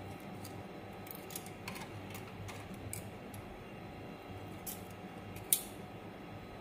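Metal tongs clicking against a ceramic plate and a wire grill grate as grilled pork chops are lifted onto the plate, with a sharper clink about five and a half seconds in, over a low steady hum.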